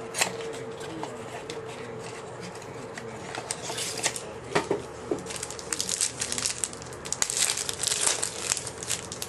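A sealed baseball card pack being torn open and its wrapper crinkled while the cards are handled. The irregular crackling and rustling grows busier in the second half.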